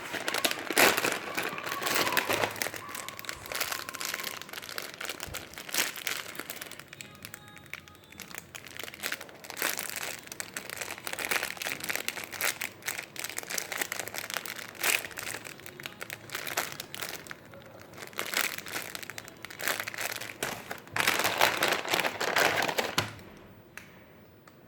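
Plastic packaging crinkling and crackling as it is handled and opened, in uneven bursts, stopping near the end.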